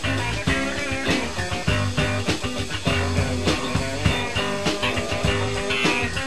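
Rock song with guitar and drums playing at a steady beat.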